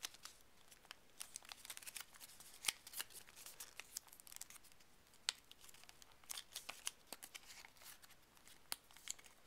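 A sheet of paper folded and creased by hand into an origami paper cube: faint, irregular crinkles and sharp crackles of the paper, with a few louder snaps.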